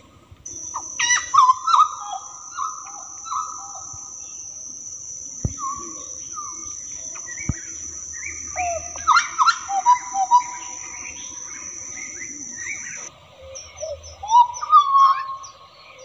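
Hooded butcherbird (jagal papua) singing a varied run of short, clear whistled notes that slide up and down. An insect's steady high drone sits under the song until about 13 s in.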